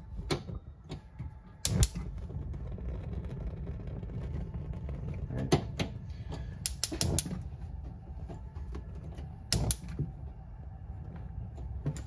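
Furrion three-burner gas cooktop's spark igniter clicking in short bursts as the burner knobs are pushed in and turned to light the burners, over a steady low rumble.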